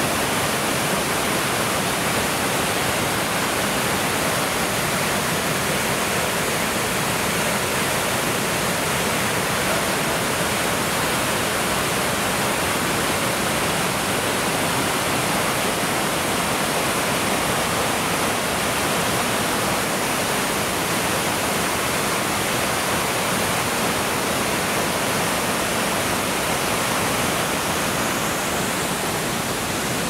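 A waterfall rushing in a steady, unbroken wash of white water.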